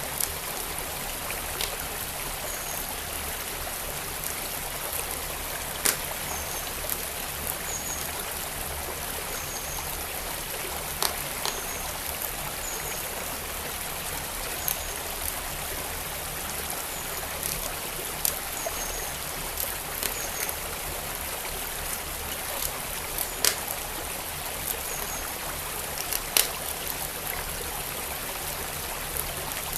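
Steady rush of a flowing stream with a wood fire crackling over it: sharp irregular pops every second or two, a few of them louder.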